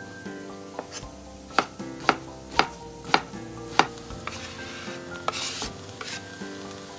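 Kitchen knife chopping eggplant on a cutting board, five crisp strokes about half a second apart. Then the diced eggplant is scraped off the board into a hot pot, with a brief sizzle near the end.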